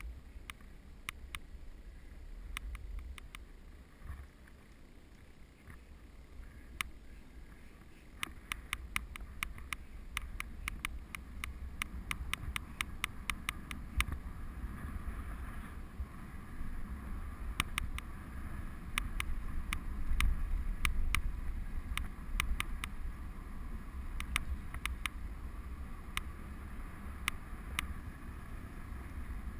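Road bike free-wheeling on a tarmac lane: wind rushing over the bike-mounted microphone with tyre hiss, and many sharp irregular clicks, several a second in clusters, from about eight seconds in.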